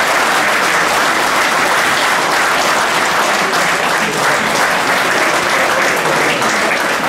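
Steady applause from football spectators and players, a dense even patter of many hands clapping.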